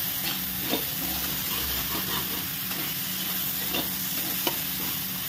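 Chickpeas and spice masala frying in oil in a kadhai, sizzling steadily as a spatula stirs and scrapes them around the pan, with a handful of light knocks of the spatula against the pan.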